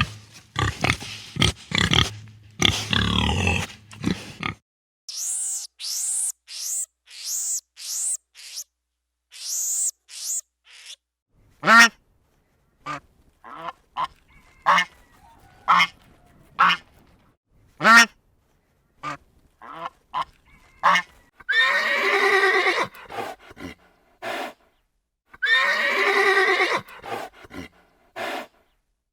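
A run of different animals' calls, one clip after another: low grunts at first, then a string of high chirps, then short repeated calls, and near the end two long calls whose pitch wavers.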